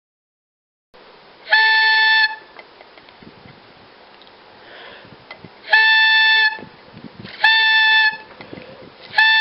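Homemade laser-cut air horn sounding four short blasts, each a steady, high-pitched note lasting under a second, with gaps of a few seconds between the first two and shorter gaps after.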